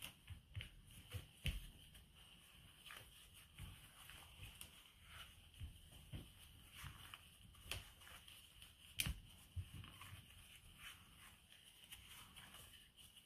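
Faint, irregular soft knocks and squelches of cookie dough being mixed by hand in a glass bowl, with a sharper knock of the bowl about nine seconds in.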